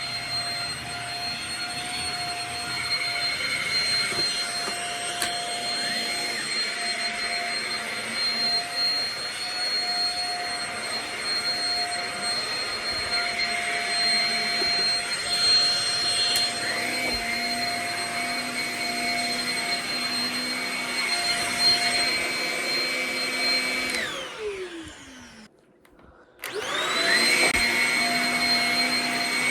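Shark Rocket Zero-M corded stick vacuum running with a steady motor whine. Near the end it is switched off and winds down to a stop. After about a second of quiet it is switched back on and spins up to the same steady whine.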